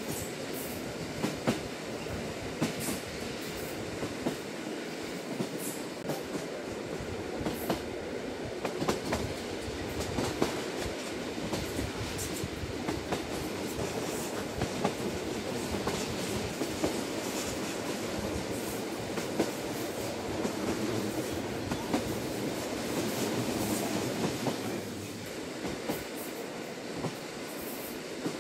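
Limited express train heard from inside the carriage at running speed: a steady rumble of wheels on the track, with irregular clicks and knocks from the rails. The rumble eases slightly near the end.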